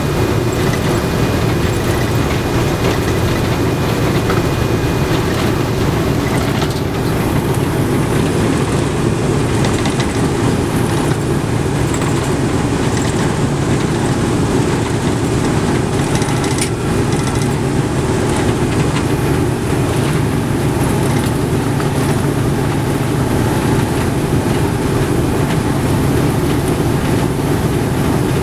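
Four Wright R-1820 Cyclone nine-cylinder radial engines of a Boeing B-17G Flying Fortress running steadily as the bomber rolls along the runway, heard from inside its Plexiglas nose.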